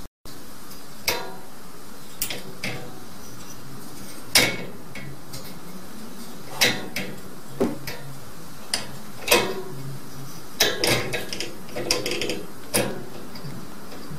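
Metal sliding bolt latch and wire cage door clinking and rattling as a cat paws at the latch. The sharp metallic clicks come irregularly, with a quick cluster near the end, over a steady hiss.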